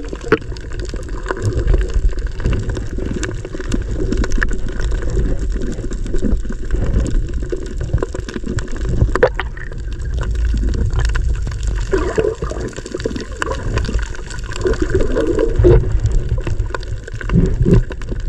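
Muffled rush and gurgle of water moving around an underwater GoPro as a diver swims over a reef, with a steady low rumble and scattered small clicks.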